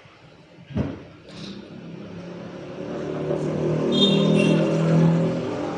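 A motor vehicle engine running close by, getting louder over a few seconds and loudest near the end, after a single thump about a second in.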